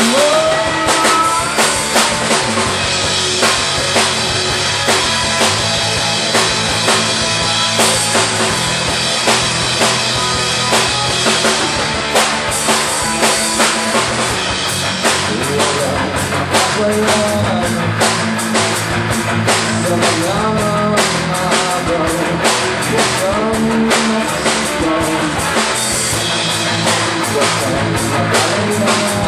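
Rock band playing live: a drum kit keeps a steady beat under electric guitars and bass guitar.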